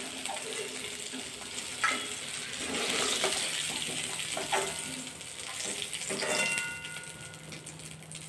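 Mustard oil sizzling steadily in an aluminium kadai as fried potato wedges are lifted out with a metal ladle. The ladle knocks against the pan a few times.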